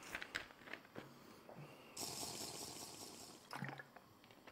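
Faint handling of a plastic water bottle, with small clicks and knocks. About two seconds in, a short rush of liquid or fizz starts suddenly and fades after about a second and a half.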